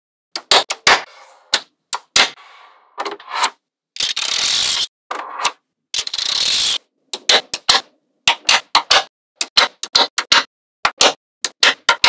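Small magnetic balls snapping together in a run of sharp, irregular clicks, with two longer rushes of noise of about a second each, around four and six seconds in.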